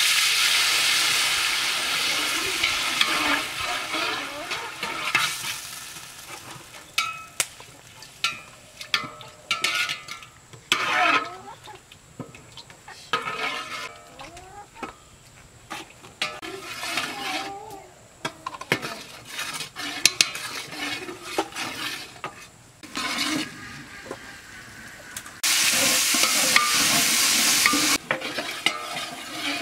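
Water poured into a large aluminium pot of frying food, sizzling loudly for the first few seconds. A ladle then stirs and scrapes in the pot with scattered clinks, and a second short burst of sizzling comes near the end.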